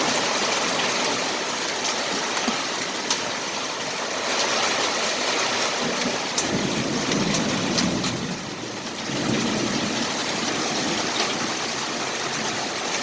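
Hailstorm: a steady rush of hail and rain with sharp pinging clicks of pea-sized hailstones striking hard surfaces, several a second. A low rumble swells up twice in the second half.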